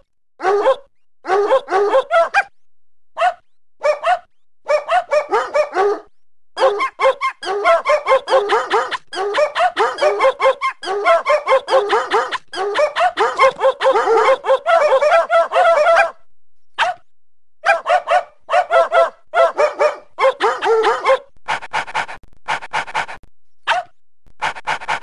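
A small dog barking over and over in quick yapping runs, several barks a second, broken by short pauses.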